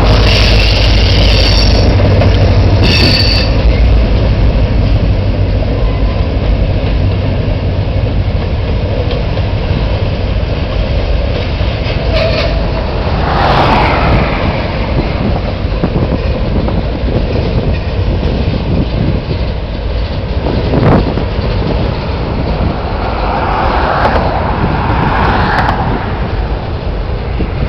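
Freight train passing close by. It opens with the deep rumble of the trailing IC SD40-3 diesel locomotive, then the freight cars' wheels roll over the rails in a steady clatter, with occasional brief high squeals.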